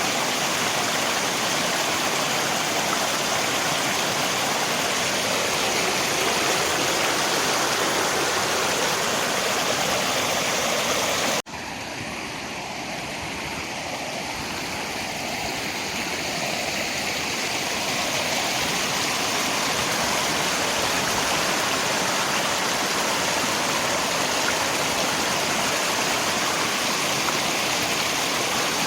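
Steady rushing of river water mixed with rain. About eleven seconds in the sound cuts out for an instant at a splice, returns somewhat quieter and slowly swells back to its former level.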